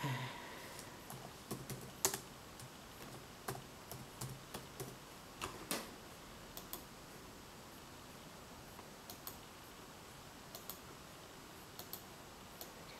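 Faint, irregular computer keyboard typing and key clicks, in short runs in the first half and only a few scattered taps later.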